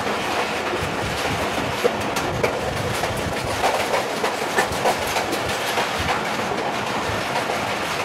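Moving passenger train heard from inside its carriage: a steady running rumble and rattle, with irregular clicks and knocks from the wheels on the track.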